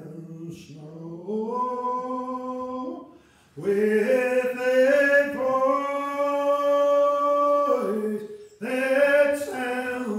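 A man singing unaccompanied in long, held notes, with a short break about three seconds in.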